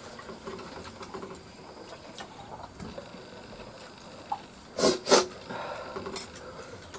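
Light clinks and scrapes of a metal spoon in a wok and of eating from plates, with two short, loud coughs close together about five seconds in, from a man eating very spicy stew.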